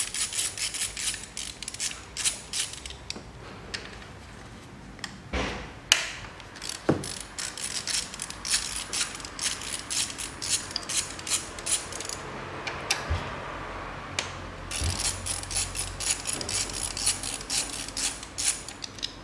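Socket ratchet with a 10 mm socket clicking in quick runs while the bolts holding the ignition coils are unscrewed. There are three runs with pauses between them, and a couple of single knocks about five and six seconds in.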